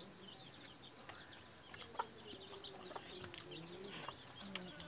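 Outdoor insect drone, a steady high buzz, with many small bird chirps over it and a few faint clicks.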